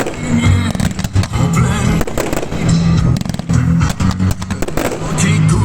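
Fireworks going off in quick succession, many sharp bangs, over music with a steady bass line.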